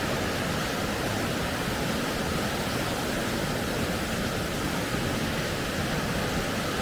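A fast, deep flooded river rushing steadily over a ford.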